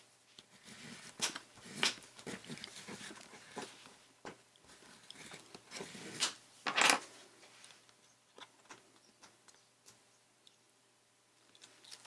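Burnishing tool rubbed along double-sided tape on card stock: a run of short scraping strokes, the longest and loudest about six seconds in.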